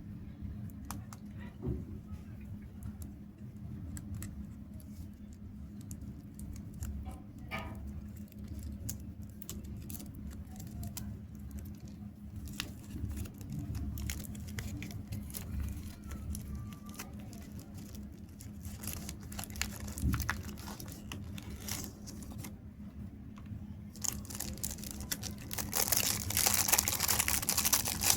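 Chocolate bar wrappers being handled, crinkled and torn open, with scattered small clicks and taps. The crinkling grows much louder in the last few seconds. A faint steady hum runs underneath.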